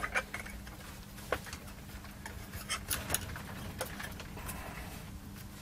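Scattered light clicks and taps from handling a small power-supply circuit board and its metal bracket while fitting it back together.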